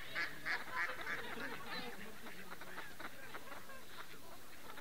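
Ducks on a pond quacking: a run of quick, repeated calls, about three a second, that stops after the first second or so, followed by fainter, scattered calls.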